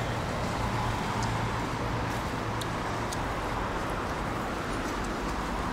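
A car's engine idling while the car is stopped, heard from inside the cabin: a steady low hum, with a few faint ticks.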